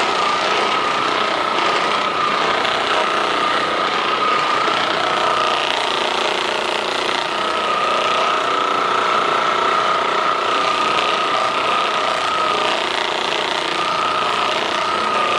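Handheld percussion massage gun running: a steady motor buzz with a high whine that breaks off twice and comes back.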